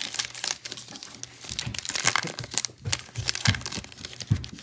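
Thin foil trading-card pack wrapper crinkling as it is handled and torn, in many quick crackles, with a few soft low thumps in the second half.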